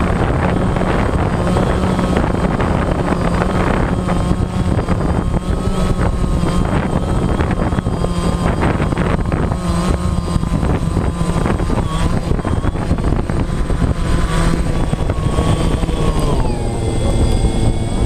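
DJI Phantom quadcopter's motors and propellers whining steadily, picked up close by the camera on the drone itself, with scattered crackles. Near the end the whine drops in pitch as the drone comes down into the grass.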